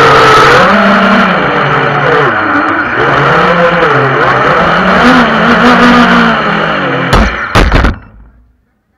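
FPV quadcopter's brushless motors and propellers whining, the pitch rising and falling as the throttle changes. Near the end come two hard knocks as the drone comes down onto the pavement, then the motor sound dies away and cuts out.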